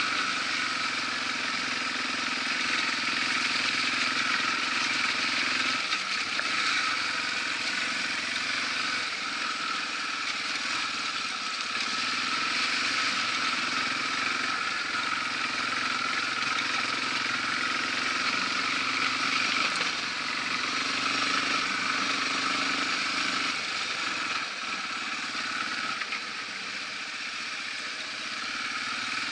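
Yamaha TW200's single-cylinder four-stroke engine running as the motorcycle is ridden along an unpaved forest road, over a steady rushing hiss of riding noise. The engine note shifts about six seconds in and again near the end.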